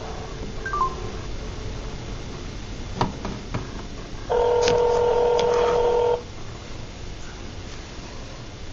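Phone on speaker placing a call: a few short keypad beeps about a second in, a click, then one ringback tone lasting about two seconds in the middle as the outgoing call rings through.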